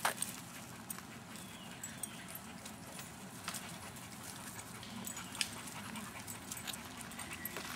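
Dogs making faint sounds over a steady low background rumble, with a few sharp clicks, the loudest right at the start and about five seconds in.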